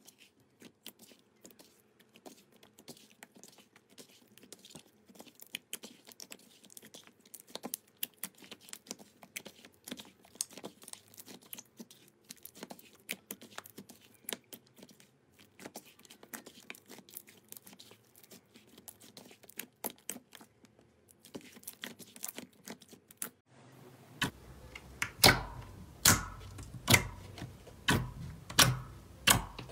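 Hands stretching and kneading slime, giving a dense run of fast small clicks and crackles. About 24 seconds in, fingers pressing into a clear jelly-like slime bring louder, regular pops, a little more than one a second.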